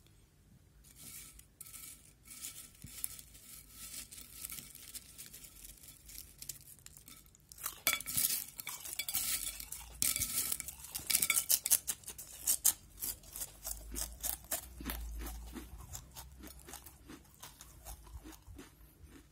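Potato crisps being crunched and their packet crackling close to the microphone: a dense run of sharp crackles, quieter at first and loudest from about eight seconds in.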